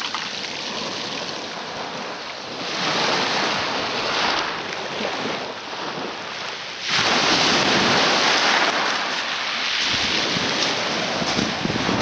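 Small Black Sea waves breaking and washing up and back over a shingle beach of rounded pebbles, with wind buffeting the microphone. The rush grows suddenly louder about seven seconds in.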